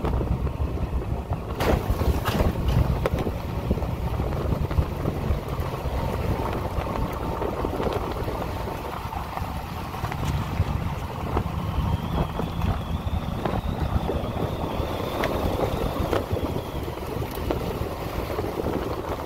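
Chevrolet Silverado pickup driving on a dirt road: a steady low rumble of engine and tyres with wind on the microphone, and a few sharp knocks about two seconds in.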